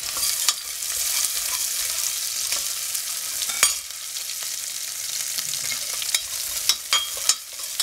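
Sliced onions sizzling in hot ghee and oil in a stainless steel pressure cooker, stirred with a steel ladle that clicks and scrapes against the pot. The sharpest knock comes about three and a half seconds in, and a few quick clicks come near the end.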